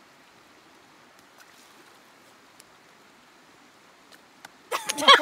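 Soft, steady rush of a shallow river flowing over stones, with a few faint clicks. Near the end a person's voice cuts in loudly.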